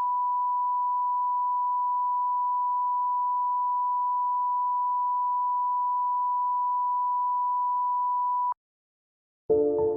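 A synthesized emergency-alert tone: one steady, unbroken pure tone that cuts off abruptly about eight and a half seconds in, followed by a brief silence. Ambient music starts just before the end.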